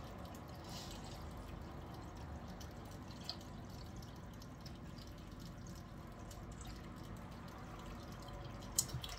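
Faint water dripping and trickling in a kitchen sink, with a couple of light knocks.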